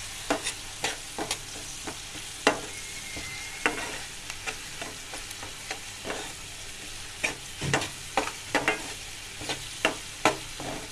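Chopped onions and ginger-garlic paste sizzling gently in butter and oil in a metal kadai over low heat, while a spatula scrapes and knocks against the pan as they are stirred. The knocks come more often in the second half.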